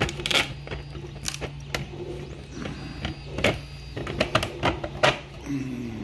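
3D-printed plastic sleeve being pushed down over a 3D-printed plastic case frame: irregular clicks, knocks and scrapes of plastic on plastic as the tight-fitting sleeve slides on.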